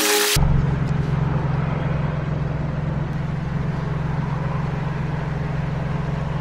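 A brief burst of noise, then a steady low hum of an engine idling.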